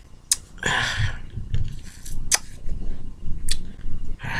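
Three sharp clicks and two short breathy hissing bursts close to the microphone, one burst just under a second in and one near the end.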